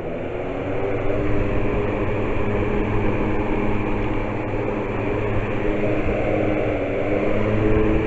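Air King box fan running: a steady rush of air with a low motor hum, growing a little louder near the end.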